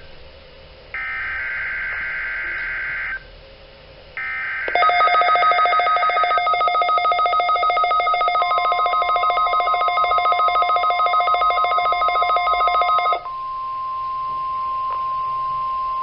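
Midland WR300 weather radio receiving a NOAA Weather Radio required weekly test: two screeching SAME digital header bursts with short hiss-filled gaps, then the radio's rapid pulsing alert beeps, with the steady 1050 Hz warning alarm tone coming in under them and continuing alone after the beeping stops near the end.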